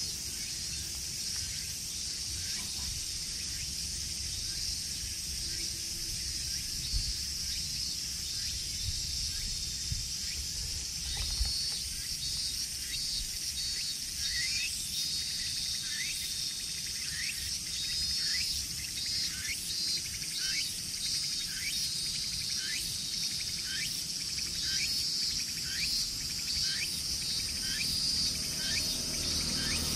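A steady, high-pitched chorus of insects. Over the second half, a bird repeats a short call about once a second.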